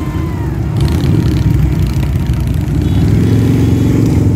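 Several cruiser motorcycles rolling past at low speed with their engines rumbling. Near the end one comes up close and grows louder.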